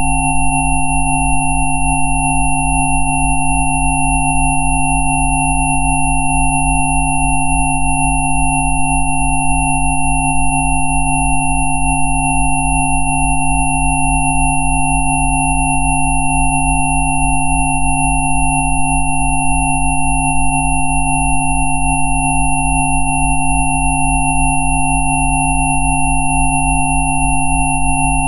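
Electronically generated sine tones, presented as Rife healing frequencies, all sounding at once and held without change: a low hum with a fast, even pulse, several mid-pitched tones and a thin, high whistle.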